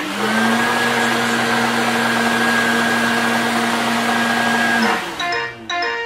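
LG Hom-Bot robot vacuum's suction motor spinning up and running steadily with a whine for about five seconds, then winding down as the robot finishes a tiny marked cleaning area. The robot then starts a short electronic melody.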